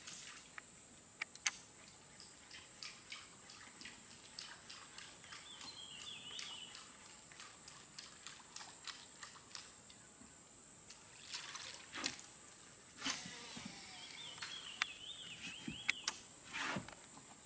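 Quiet riverside ambience: a steady high whine, small water sloshes and ticks, and two brief warbling bird calls, one near the middle and one near the end.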